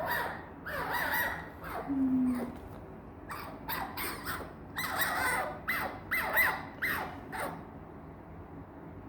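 Fennec fox making excited, squeaky whining calls, short pitch-bending squeaks in quick runs with pauses between: her pampered, wanting-attention voice.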